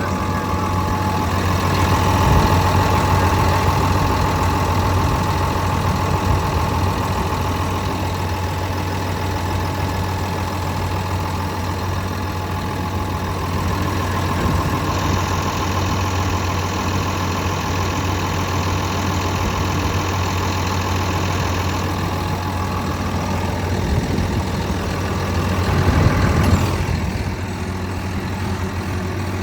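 Komatsu D65EX-17 bulldozer's diesel engine idling steadily, with a low, even drone and a faint steady whine in the first seconds. It swells briefly near the end.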